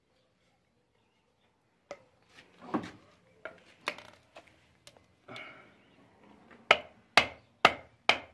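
A PVC pipe and fitting knocked against a concrete floor: light knocks and scrapes from about two seconds in, then four loud sharp strikes about half a second apart near the end.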